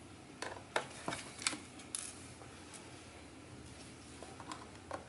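Faint, scattered clicks and taps of a small screwdriver and tiny screws against a MacBook Pro's aluminium bottom case and a wooden tabletop while the bottom-case screws are being removed. The clicks come in a quick cluster over the first two seconds, with a few more near the end.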